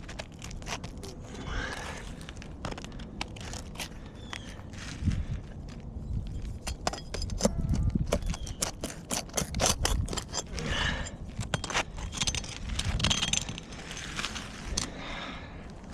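New asphalt shingle being worked into place on a shingle roof: irregular scraping and crackling of shingle against shingle, with many sharp clicks.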